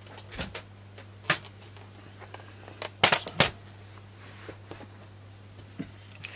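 Plastic Fiskars paper trimmer being handled and set down on a table: a few light knocks and clicks, the loudest two close together about three seconds in, over a steady low hum.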